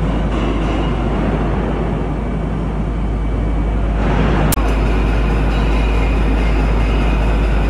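Loud, steady mechanical rumbling, like a heavy vehicle running, with a sharp click about four and a half seconds in.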